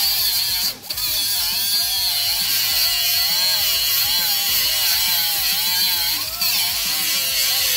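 Small handheld grinder with an abrasive disc grinding away car underbody metal to make clearance, a steady high whine whose pitch wavers as the disc bites. It breaks off briefly about a second in and stops suddenly near the end.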